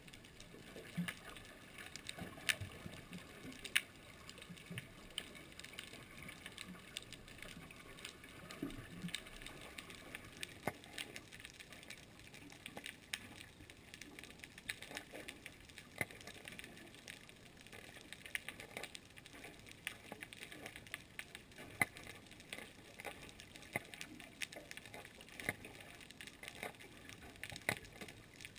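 Underwater ambience picked up by an underwater camera: a faint hiss with many irregular sharp clicks and crackles.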